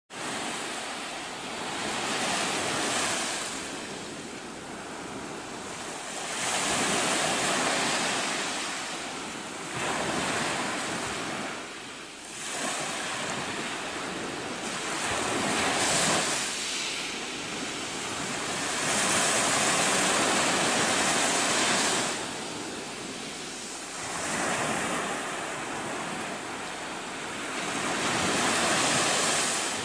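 Ocean surf: waves breaking and washing back, the rushing noise swelling and falling away every few seconds.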